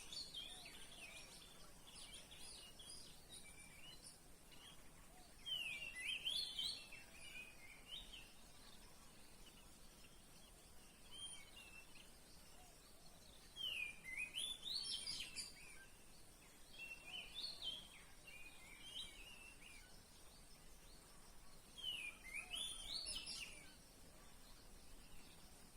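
A songbird singing loud, quick, varied whistled phrases, coming in bouts roughly every eight seconds, over a faint steady high-pitched hiss.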